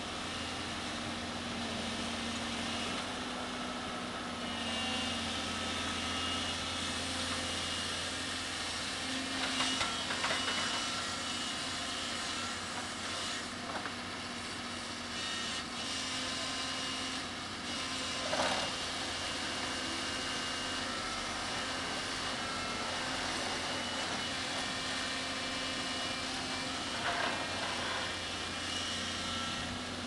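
Diesel engine of a crawler excavator running steadily under load as it works a tilting sheet pile driver attachment, handling a steel sheet pile. Faint high tones come and go, and there are three brief knocks.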